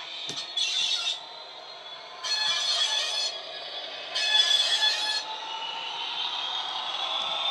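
Model Class 67's DCC sound decoder, playing a Class 66 sound file through its small speaker, gives three blasts of about a second each. After the last one, the diesel engine sound builds with a slowly rising whine as the locomotive approaches.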